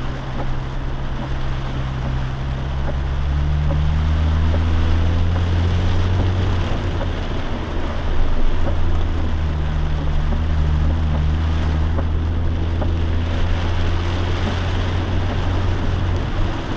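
Lifted Jeep's engine droning under way, heard from inside the cabin over a steady rush of tires on a wet, flooded road. The engine note rises a few seconds in and dips briefly about halfway through.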